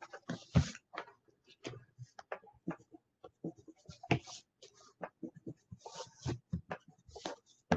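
Thick Sharpie marker stroking on paper in short, irregular scratches as the drawing's lines are gone over and cleaned up, heard through video-call audio.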